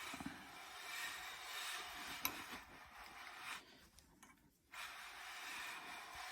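4.6 litre Rover V8 turned over by hand with the pistons newly fitted: a rasping, scraping rub from the piston rings in the bores, in two stretches with a short pause a little past halfway. The noise is normal for fresh rings.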